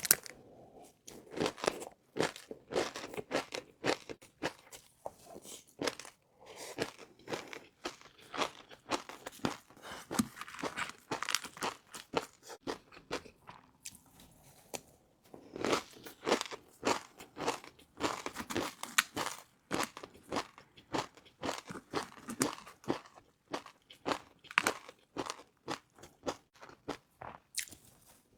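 Close-miked chewing of crispy fried noodles: a dense, irregular run of crisp crunches and crackles, with a couple of short lulls between mouthfuls.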